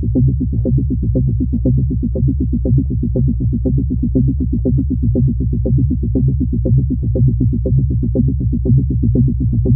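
Electronic background music with a steady, fast synthesizer beat and a low bass line.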